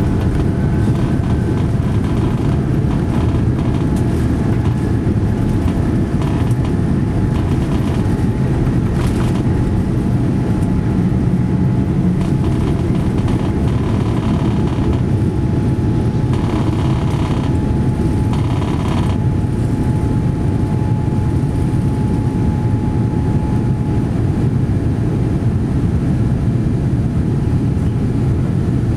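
Steady low rumble inside the cabin of a Boeing 787-9 airliner: engine and airflow noise with a faint steady whine over it.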